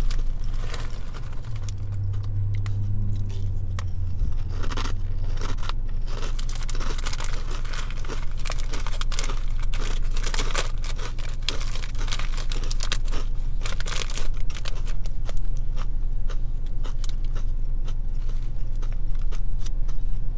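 Crunchy fried corn kernel snack (Boy Bawang Cornick) being chewed close to the microphone, with many short crackling crunches, and the foil snack bag crinkling as it is handled.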